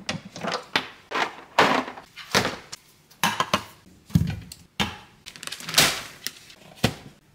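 Kitchen cabinet doors and ingredients such as cans and packages being taken out and set down on a counter: a string of knocks and thuds with some scuffing and rustling.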